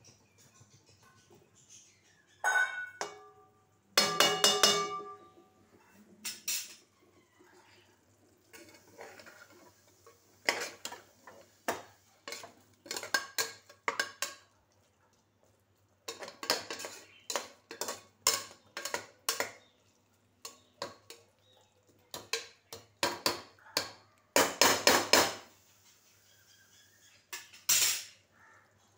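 A metal slotted spoon and ladle clanking and scraping against metal cooking pots while food is stirred and lifted: irregular clusters of sharp clinks, with a ringing metallic clang about four seconds in and a loud run of clanks near the end.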